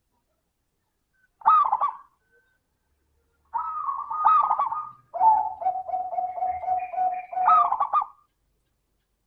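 Zebra dove (perkutut) cooing: a short coo about one and a half seconds in, then a longer song phrase from about three and a half seconds, with a run of quick, even notes about three a second, closing on a final coo around eight seconds.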